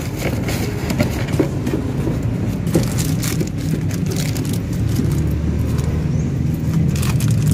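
A steady low engine hum from a running motor, with light clicks and rustles as a new fuel-filter element and its plastic wrapping are handled.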